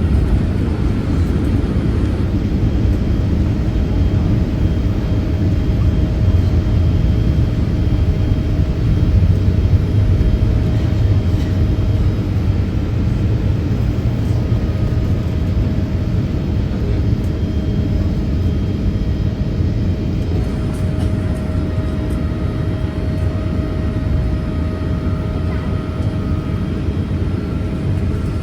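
Steady cabin noise of a Boeing 787-8 Dreamliner in flight: an even, low-pitched rush of engine and airflow noise with a faint steady hum above it.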